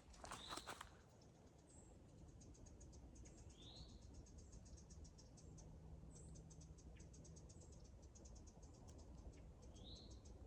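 Faint outdoor wildlife sounds: a rapid, high pulsing trill through most of the stretch, with a few short rising chirps, one a few seconds in and one near the end.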